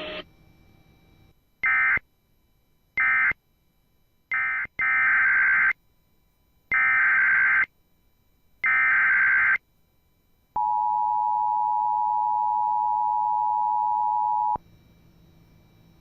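Emergency Alert System data bursts: three short digital squawks, typical of the end-of-message code, then three longer screeching bursts of about a second each, the SAME header of the next alert. They are followed by the steady two-tone EAS attention signal (853 and 960 Hz), held for about four seconds before cutting off.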